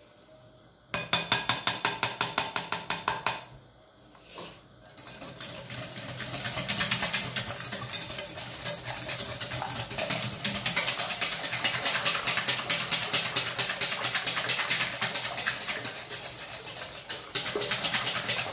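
Wire whisk beating runny cake batter by hand in a glass bowl, the wires clicking rapidly against the glass. A short run at about six strokes a second starts about a second in and stops after a couple of seconds. After a brief pause, steady continuous whisking starts about five seconds in.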